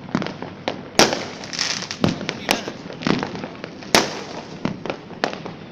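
Fireworks exploding overhead: an irregular run of about a dozen sharp bangs and cracks, with the loudest ones about a second in and near four seconds in.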